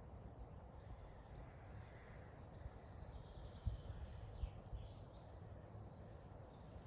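Faint woodland birdsong: small songbirds giving high chirps and quick trilled phrases, busiest in the middle. Under it runs a low rumble with a couple of soft thumps.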